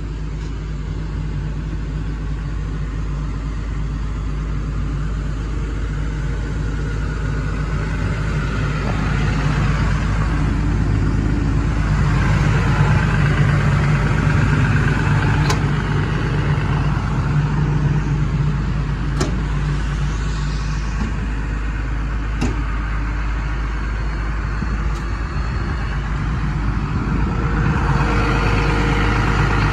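Hyundai R210 excavator's Cummins diesel engine idling steadily, growing louder around a third of the way in and again near the end. A few short sharp clicks sound in the middle.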